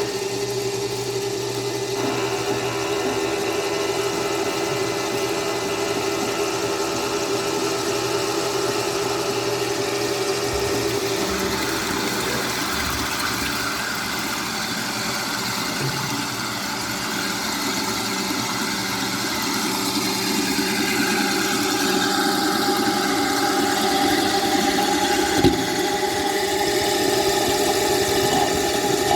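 Small 1.5 kg UCCLife mini washing machine running, its motor giving a steady hum whose pitch shifts about a third of the way in and again about two-thirds through. A single sharp knock comes near the end.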